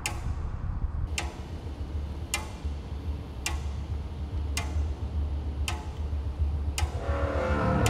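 Slow, even ticking, about one tick a second, over a steady low hum. Sustained music tones begin to swell near the end.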